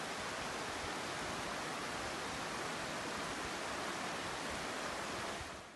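Steady rushing noise of floodwater flowing past, with no distinct events; it fades out near the end.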